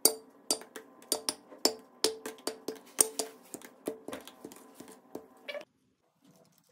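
Raw chicken pieces dropped one after another into a stainless steel bowl: a quick, irregular run of knocks, each setting the bowl ringing. They stop suddenly about five and a half seconds in.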